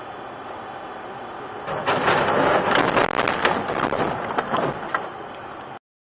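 A spray of wet debris hitting a car's windshield: a dense patter of sharp impacts and splatter that starts about two seconds in and goes on for about three seconds, over steady road noise inside the car. The sound cuts off abruptly near the end.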